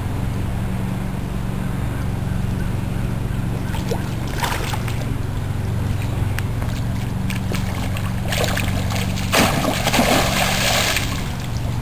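A hooked grass carp thrashing at the surface as it is brought to the landing net, splashing the water: a short splash about four and a half seconds in, then a longer, louder spell of splashing near the end. A steady low hum runs underneath.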